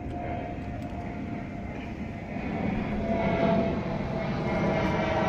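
Steady drone of an aircraft's engines with a faint whine, growing louder about halfway through.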